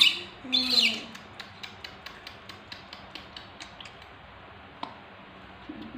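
A baby macaque gives a short, high screeching squeal near the start, followed by a run of light quick clicks, about three or four a second, that fade out over a few seconds.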